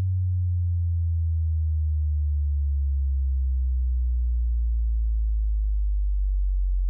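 Electronic sine-wave test tone of a hearing-test frequency sweep, very deep and gliding slowly lower throughout, near the bottom of a cat's hearing range.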